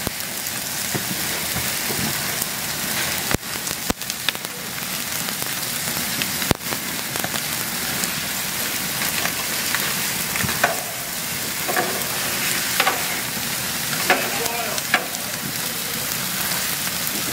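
New York strip steaks standing on their fat caps sizzle and spit over gas-grill flames that are flaring up through the grate. A few sharp cracks stand out in the first several seconds.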